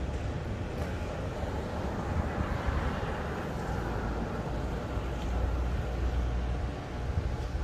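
Outdoor city ambience: wind rumbling on the microphone over a steady wash of distant traffic.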